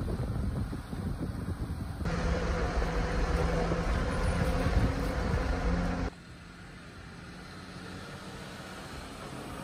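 Jeep Wranglers driving slowly on a dirt trail: engine running and tyres rumbling over the ground. The sound changes abruptly about 2 s and 6 s in. It is loudest in the middle part, where there is a steady engine hum, and quieter in the last part.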